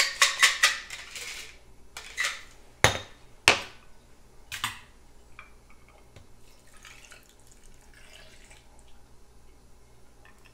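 Glass and metal cocktail-shaker tin clinking with ice and liquid: a quick rattle of clinks at the start, then several sharp knocks of glass and tin against each other and the counter over the next few seconds, followed by a faint pour of the drink back into the tin.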